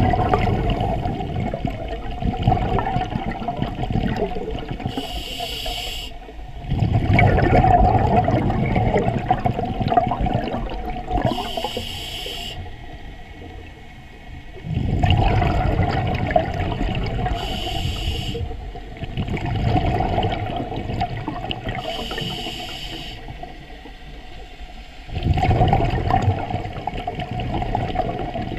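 Scuba diver breathing through a regulator underwater. Each breath is a short hiss on the inhale, followed by a longer rush of exhaled bubbles. There are about five breaths, one every five to six seconds.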